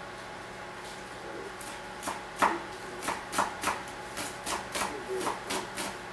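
Kitchen knife chopping fresh green herbs on a wooden cutting board. It starts about two seconds in, then runs on as quick, regular strikes of the blade on the board, roughly three a second.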